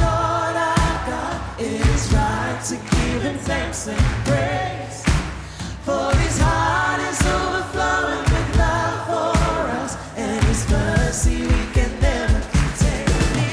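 Live worship song: voices singing over a full band with a steady drum beat.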